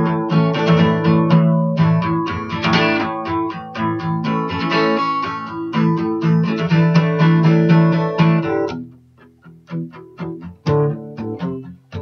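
Acoustic guitar strummed in steady chords; about three-quarters of the way through the strumming stops and gives way to a few quieter single plucked notes before another strum.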